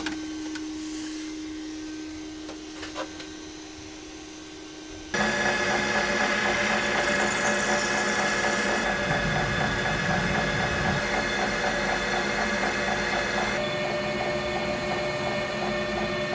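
A 3D printer's quiet steady hum with a few light clicks as the finished print is handled, then, about five seconds in, a metal lathe starts running loud and steady as it turns a steel part with a carbide cutting tool. Near the end the sound shifts as the lathe drills into the part with a bit held in a tailstock drill chuck.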